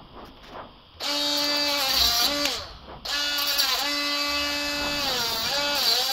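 A small cordless power tool's motor whining in two runs, the first about a second in and the second from about three seconds until the end, as it is worked against a plastic car grille frame. Near the end of each run the pitch sags and wobbles under load, then winds down.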